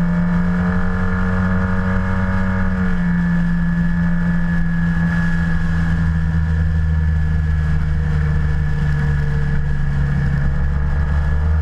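Yamaha TMAX maxi-scooter parallel-twin engine running at a steady, loud pitch, with a slight shift in its tone about three seconds in.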